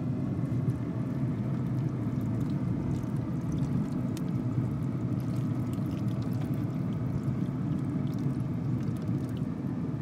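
Beef broth poured from a glass measuring cup into a foil pan of roasts and onions, liquid splashing into the pan, over a steady low rumble.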